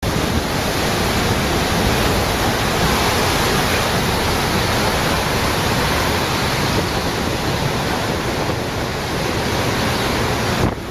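Typhoon wind, a loud, steady rushing noise that drops off abruptly near the end.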